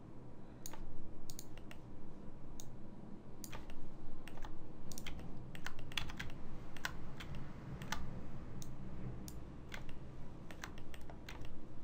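Scattered, irregular clicks of a computer mouse and keyboard in use, over a faint low steady hum.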